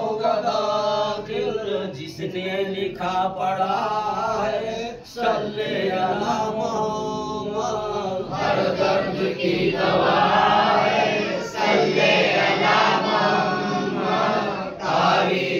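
A group of men chanting a devotional naat in praise of Muhammad together, unaccompanied, in a slow rising and falling melody. The chanting grows louder about eight seconds in.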